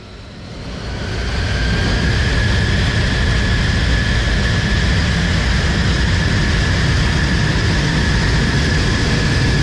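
F-35 Lightning II's F135 turbofan at high power as the jet begins its takeoff roll: a loud, steady jet roar with a high whine running through it, building up over the first second or two.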